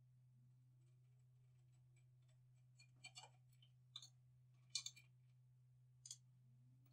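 A few faint, irregular clicks and taps, about a second apart, over a low steady hum.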